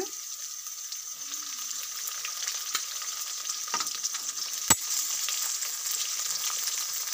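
Oil sizzling steadily in a metal kadai of frying onions, green chillies and curry leaves as pre-fried okra pieces are tipped in. There is a single sharp knock about two-thirds of the way through, with a few fainter clicks before it.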